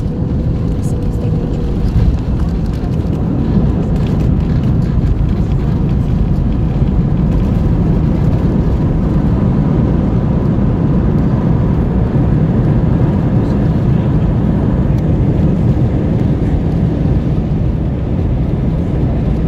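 Airbus A321 cabin noise on landing: a loud, steady low rumble of the engines and the wheels on the wet runway, with a brief jolt about two seconds in as the main wheels touch down, then the rollout with the ground spoilers raised.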